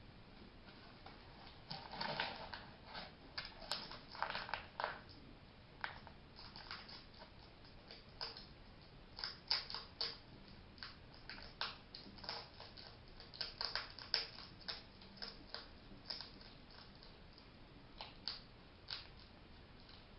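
A hedgehog making a long run of short, sharp sneeze-like bursts, irregular and in quick clusters, starting about two seconds in. The owner took it for sneezing or sickness but later learned it is a sign that the hedgehog is happy.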